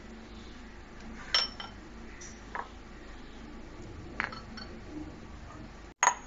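A few light, ringing clinks of a ceramic bowl and drinking glass knocking together as flour and water are mixed into dough by hand. The loudest clink comes about a second and a half in.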